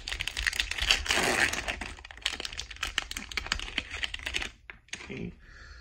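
Plastic wrapper of a trading-card pack crinkling and tearing open: a dense run of crackles and rustles that dies down about four and a half seconds in.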